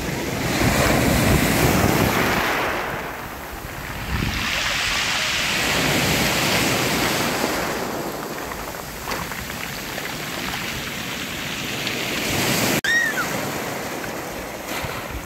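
Sea waves washing onto the beach in slow swells, each surge rising and falling over a few seconds. A brief high chirp sounds near the end.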